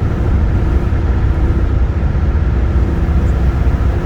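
Steady low rumble of engine and road noise inside a moving truck's cab.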